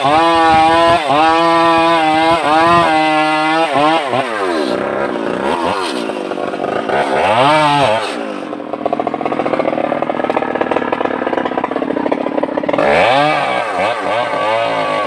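Stihl MS 381 two-stroke chainsaw running at high revs, its pitch wavering, for the first few seconds. It is then blipped several times with the revs rising and falling, drops to a rough idle for a few seconds, and is revved up and down again near the end.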